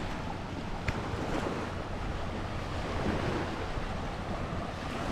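Small waves washing on a sandy beach, with wind buffeting the microphone. A light click about a second in.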